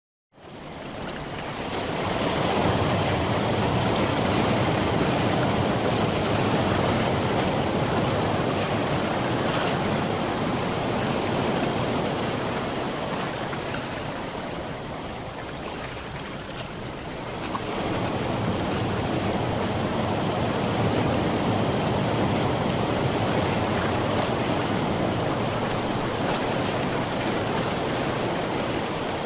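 Sea waves breaking on a shore in a continuous wash of surf, fading in at the start. The surf eases off for a few seconds past the middle, then a larger wave surges in and the wash swells again.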